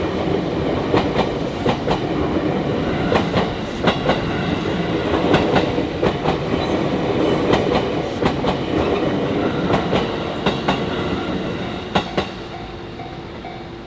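A train passing over a level crossing, its wheels clacking over the rail joints in a run of sharp clicks over a steady rumble. About twelve seconds in, the last wheels click past and the train fades, leaving the crossing's warning bell ringing in even pulses.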